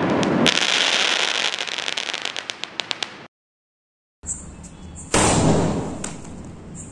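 2-inch sky shot fireworks: a sharp crack as the shell's stars open, then a dense crackling that thins to scattered pops and stops about three seconds in. After a second of silence comes another loud bang, the next shell being fired.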